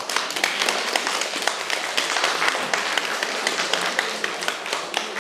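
Audience applauding: many hands clapping in a dense patter that starts suddenly.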